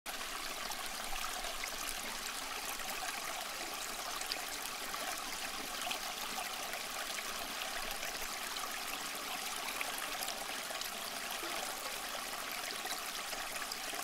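Water trickling steadily down the ribbed front panel of a small tabletop waterfall fountain into its pebble-filled basin.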